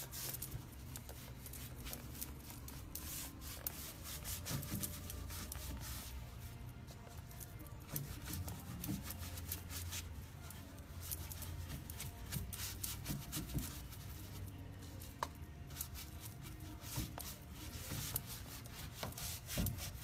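A paint brush scrubbing and dabbing aging wax onto a painted wooden dresser: repeated irregular scratchy rubbing strokes over a low steady hum.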